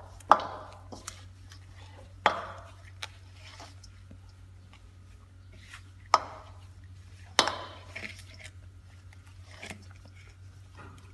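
Gloved hands kneading bun dough in a stainless steel bowl, with flour and milk being worked in. The dough pushes and slaps against the bowl, and the bowl knocks on the tiled floor four times loudly, a few seconds apart, each knock with a short ring, with softer knocks between.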